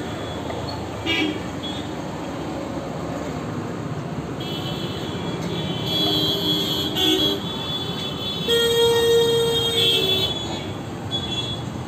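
Vehicle horns honking over steady street traffic noise. Several honks come in the middle, and the loudest, about a second and a half long, comes about two-thirds of the way through.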